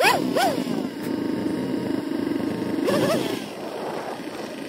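Snowmobile engine blipped twice in quick succession at the start, its pitch jumping up and dropping back each time, then running more steadily, with one more short rev about three seconds in.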